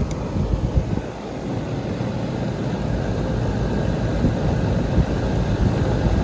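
Carrier rooftop AC unit running, its compressor and condenser fan giving a steady low drone. There is a short click right at the start.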